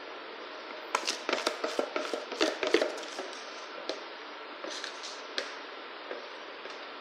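A quick run of taps and scrapes starting about a second in and lasting some two seconds, then a few scattered taps. It is a utensil scraping and knocking against a clear mixing bowl while chocolate cake batter is poured from it into an aluminium tube pan.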